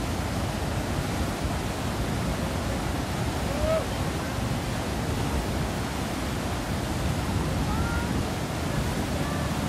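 Fast, swollen mountain river rushing through white-water rapids in a steady roar. A few brief, faint voices call out over it.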